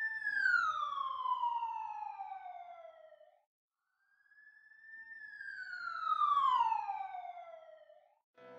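A canine howling twice. Each long howl rises a little, then slides down in pitch and trails off hoarsely, with a short pause between the two.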